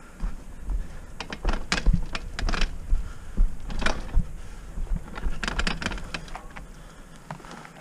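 Trek Roscoe 6 hardtail mountain bike rolling down rooty dirt singletrack: a run of sharp clicks and rattles as the tyres hit roots and rocks, over a steady low rumble.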